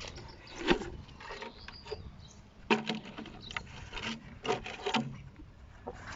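Several short scrapes and crackles of a cut plastic bottle, used as a seedling cover, rubbing against dry garden soil.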